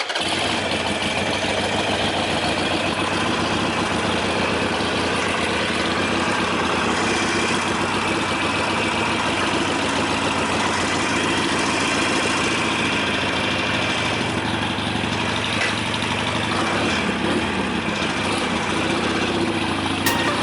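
Harley-Davidson Sportster 883's air-cooled V-twin running at a steady idle. It comes in suddenly right at the start and holds an even level throughout.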